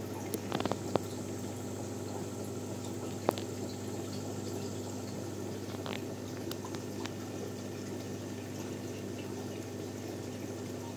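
Aquarium sponge filter bubbling steadily, over a steady low hum. A few sharp clicks and pops come in the first few seconds.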